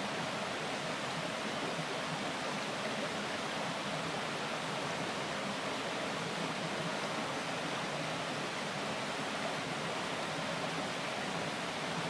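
Shallow mountain stream babbling over a rocky bed, a steady, even rush of water.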